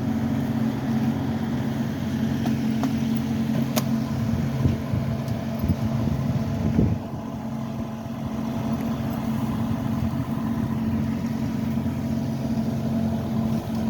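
An engine idling steadily with a low, even hum, a little quieter in the second half; a sharp click about four seconds in.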